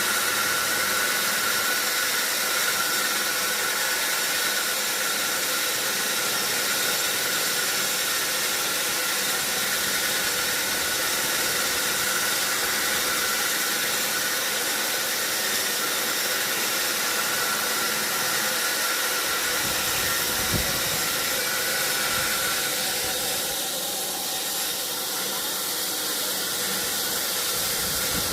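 Sawmill saw running steadily through a large mahogany log, a constant hiss with a faint steady whine. There is a brief low thump about twenty seconds in, and the sound thins slightly a few seconds later.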